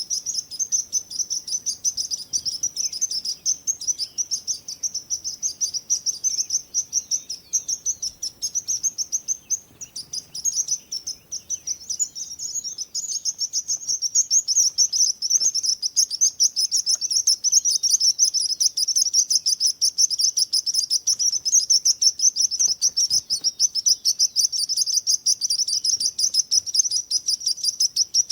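Birds chirping in a dense, rapid, unbroken stream of high-pitched chirps. There is a short lull partway through, and the chirping grows busier after it.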